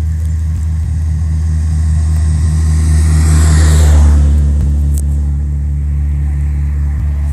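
A motor vehicle passing close by on the road: its noise swells to a peak about four seconds in and drops in pitch as it goes. Under it runs a steady low engine hum.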